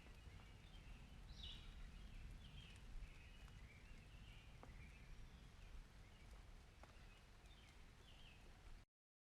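Faint outdoor ambience: a steady low rumble with birds chirping now and then and a few faint ticks, cutting off suddenly near the end.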